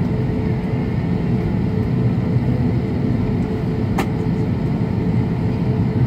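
Steady low rumble inside an Airbus A320neo cabin, from its engines at low power and the cabin air system, with the aircraft stopped or barely moving on the ground. One sharp click about four seconds in.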